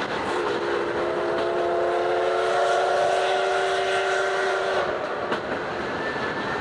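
C58 steam locomotive's whistle sounding one long blast of about four and a half seconds, several tones together, heard from a passenger coach behind it over the train's steady running noise.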